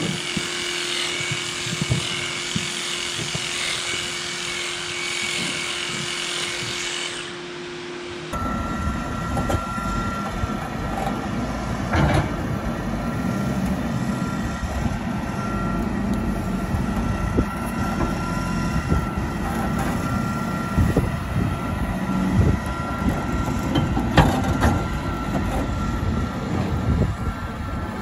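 A small handheld power tool, used for trimming a cow's hoof, runs at high speed with a high-pitched whir. After a sudden change about eight seconds in, a wheel loader's diesel engine runs steadily with a thin constant whine and a few sharp knocks.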